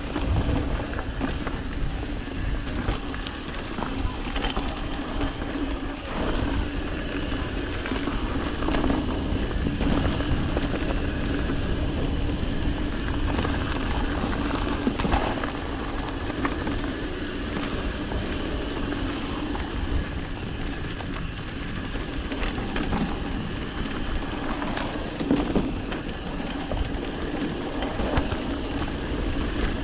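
Mountain bike rolling along a dirt singletrack: steady rumble and hum of knobby tyres on hardpack, with scattered clicks and rattles from the bike over bumps.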